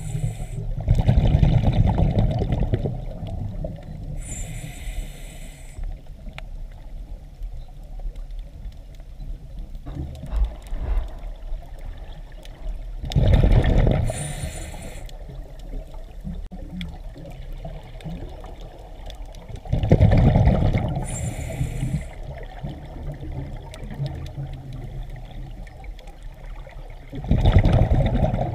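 Scuba diver breathing through a regulator underwater: a rushing gurgle of exhaled bubbles four times, with a short high hiss from the regulator between them and a low steady rumble of water throughout.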